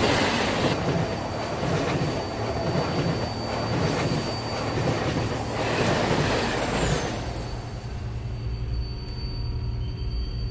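Subway train rushing past at speed, with a rhythmic clatter of wheels over the rails and a steady high wheel squeal. It dies away about seven seconds in, leaving a low hum.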